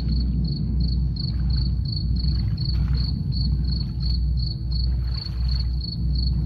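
Crickets chirping steadily at about three chirps a second, over a deep, regular low drum beat.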